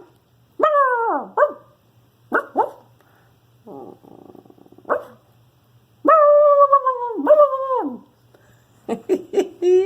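A woman imitating a dog: high yelps and short barks that fall in pitch, a brief quieter growl, two longer drawn-out barks, then a run of quick yips near the end. Her imitation is convincing enough that the puppy takes it for another dog.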